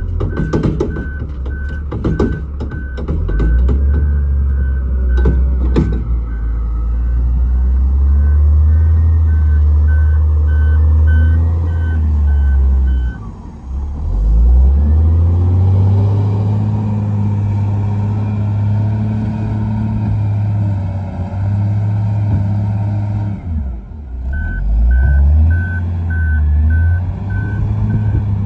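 Volvo wheel loader's diesel engine running with its reversing alarm beeping steadily, about two beeps a second. Heavy knocks in the first few seconds as the bucket empties into a muck spreader. The beeping stops about halfway while the engine revs up as the loader drives forward, and starts again near the end.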